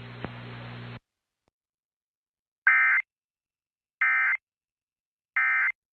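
Emergency Alert System end-of-message data code: three short, buzzy bursts of warbling data tones about a second and a third apart, marking the end of the alert broadcast. A second of faint background hiss comes first and cuts off abruptly.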